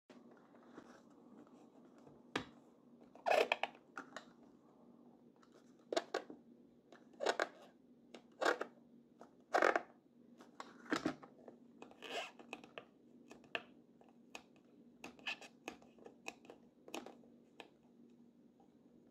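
Hands handling and rubbing a Polaroid SX-70 camera's metal body: about a dozen short, irregular scrapes and rubs over a faint steady hum.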